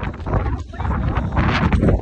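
Wind buffeting the phone's microphone in a low, steady rumble, with footsteps on wooden dock boards.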